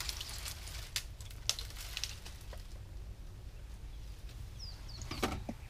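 An African elephant feeding in bush, breaking and stripping branches: sharp woody cracks and snaps, several in the first two seconds and a louder cluster near the end, over a steady low hum. A bird gives a short falling chirp just before the last cracks.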